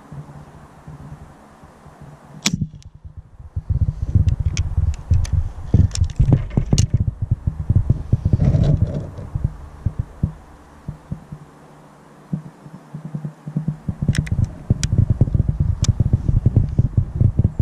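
A single sharp crack of a .22 spring-piston underlever air rifle firing about two and a half seconds in. After it come long gusts of wind buffeting the microphone, louder than the shot, with a few faint clicks among them.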